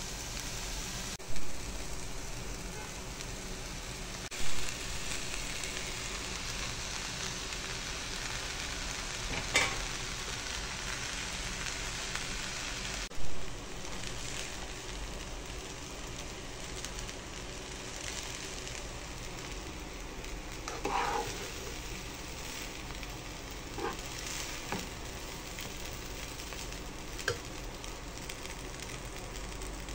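Rice with soy sauce sizzling and frying in a pan, stirred with a spoon. There are a few short loud thumps in the first half and brief scrapes of the spoon against the pan now and then.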